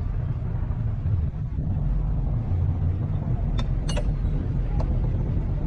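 Heavy earthmoving machinery engine running steadily with a low, even drone, with a few sharp clicks about three and a half to five seconds in.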